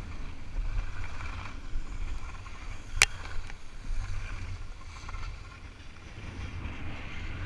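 Skis sliding over firm groomed snow, with wind buffeting the camera's microphone as a steady low rumble. A single sharp click about three seconds in.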